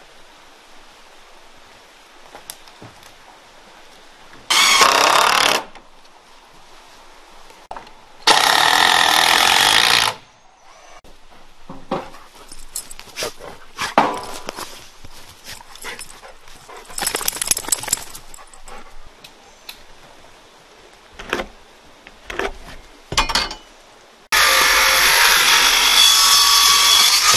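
A power tool runs in three short bursts: about five seconds in, a two-second run about eight seconds in, and a longer run near the end. Scattered knocks come in between, during work putting up wooden siding boards.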